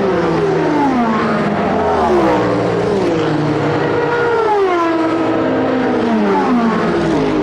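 Race car engines braking and downshifting: the engine pitch falls and steps back up over and over, with more than one car overlapping.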